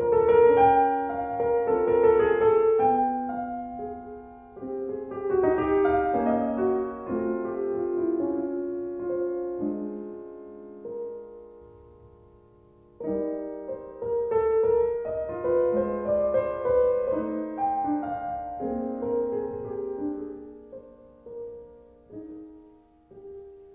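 Piano background music; it fades away about ten seconds in and starts again roughly three seconds later.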